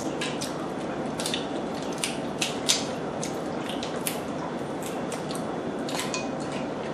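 Cooked lobster shell being cracked and picked apart by hand: irregular, sharp little clicks and crackles, several a second at times, over a steady background hiss.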